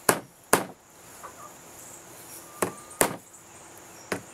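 Claw hammer tapping small brad nails into a glued-in wood strip on a hollow-core door. There are two quick taps, a pause of about two seconds, then three more taps.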